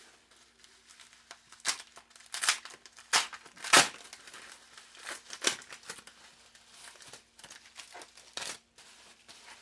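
Packaging being torn and crumpled by hand: a series of short rips and rustles, the loudest about four seconds in.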